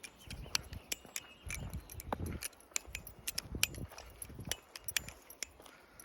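Balisong (butterfly knife) being flipped: quick, irregular metallic clicks and clacks as the handles swing and strike the pins.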